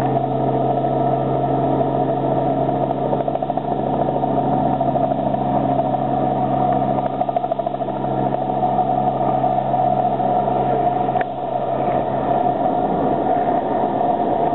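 A small Robinson helicopter's engine and rotor at lift-off power as it takes off and climbs away, a steady drone with a fast, even blade chop. The deepest part of the hum drops away near the end as it recedes.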